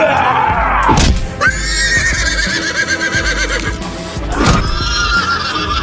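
Two horse whinnies, each a long quavering call of about two seconds, the second starting about halfway through, over background music. A sharp hit comes about a second in.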